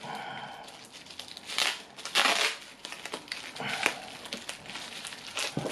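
Plastic bubble wrap crinkling and crackling as it is handled and slit open with a small knife, with sharper crackles about one and a half and two seconds in.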